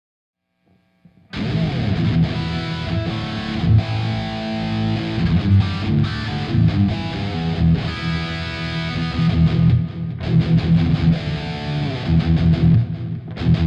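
Suhr electric guitar played through a Bogner Ecstasy 20th amp with EL34 valves into a Universal Audio Ox, using its Greenback 4x12 cabinet and Neumann U67 and Royer 121 mic emulation. The playing starts about a second in and carries on without a break.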